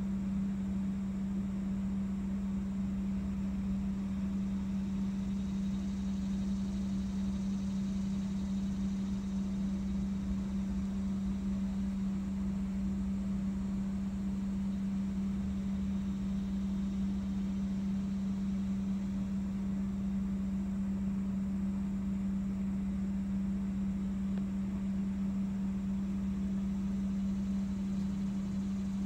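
Steady machine hum: one low, unchanging tone over a light hiss, running without a break.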